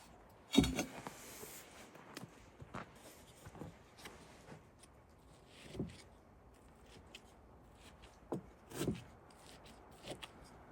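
Scattered soft knocks and clinks of handling, the loudest about half a second in, with others near the middle and toward the end: a utensil and dish being handled while eating.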